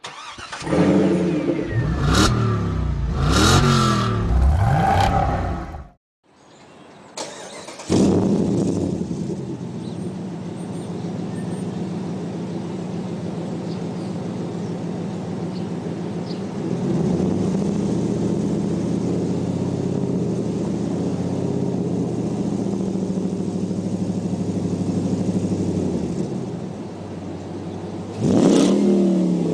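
5.7-litre HEMI V8 running through a Gibson aftermarket exhaust: four quick revs rise and fall in the first six seconds. After a short break it settles into a steady idle, with one more rev near the end.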